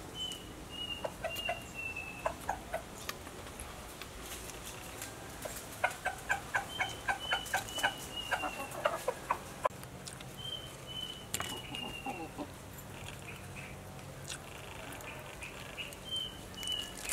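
Domestic hens clucking, with a run of about a dozen quick clucks around the middle, about three a second. A small bird's high call of four or five short, slightly falling notes repeats several times over the top.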